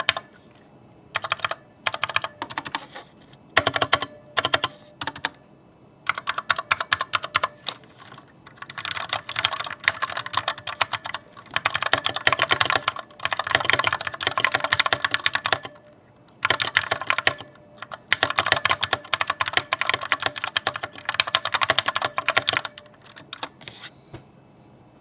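Corsair K65 RGB Mini mechanical keyboard being typed on in bursts of fast keystrokes with short pauses between them. The typing stops shortly before the end.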